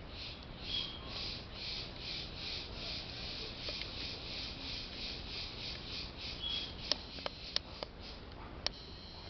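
Insect chirping in a high, steady pulse about three times a second, with a few short whistled notes. Five sharp clicks near the end are the loudest sounds.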